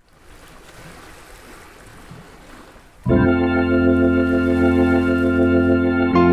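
Faint hiss, then about three seconds in an organ comes in with a loud sustained chord, held steady: the instrumental intro of a song.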